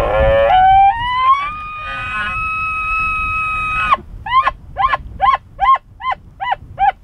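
An elk bugle: a low start that glides up into a high whistle, held about three seconds and cut off sharply, followed by a string of short chuckles, about three a second.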